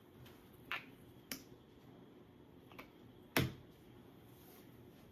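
Small cosmetic containers being handled: three light clicks, then a heavier knock a little after the three-second mark, like a cap or bottle being set down on a hard surface.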